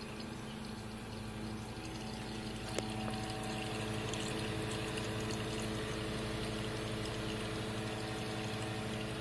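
Astoria Gloria espresso machine pulling a shot: its pump hums steadily while coffee pours into the cup. A click comes about three seconds in, after which the sound is a little louder.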